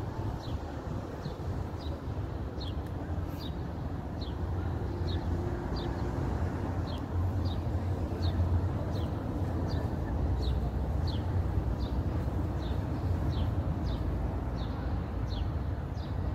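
Outdoor ambience: a steady low rumble of wind or distant traffic, with a short, high, falling chirp repeating evenly about three times every two seconds.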